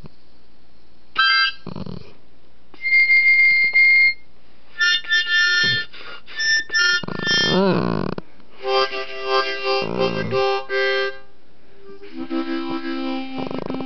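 Harmonica playing short chords and held notes in bursts, with a dog humming along in wavering tones that rise and fall, most strongly around the middle.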